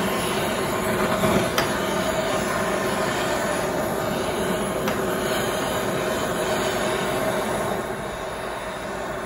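Blazer butane kitchen torch burning with a steady hiss of its blue flame, caramelizing the sweetener topping of a crème brûlée. The sound eases slightly near the end.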